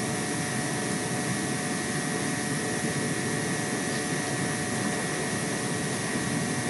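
Steady machine drone with a hiss and a couple of faint steady whining tones, even throughout with no rhythm or knocks.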